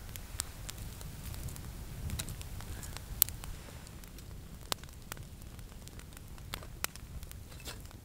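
Wood campfire crackling, with sharp scattered pops over a steady low rumble; the loudest pop comes about three seconds in, with others near five and seven seconds.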